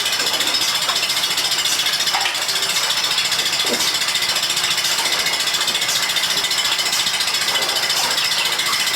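Milking machine running, a steady rhythmic clatter of the pulsators working on the vacuum line.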